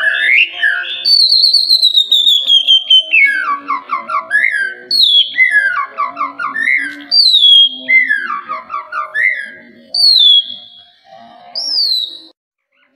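White-rumped shama (murai batu) singing: loud, clear whistled notes that slide down in pitch, followed by quick descending runs of lower notes. It repeats similar phrases every two to three seconds and falls silent shortly before the end.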